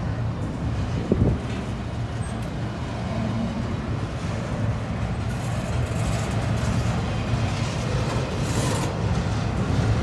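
Double-stack intermodal freight train's container well cars rolling past close by, a steady rumble of steel wheels on the rails, with one sharp knock about a second in.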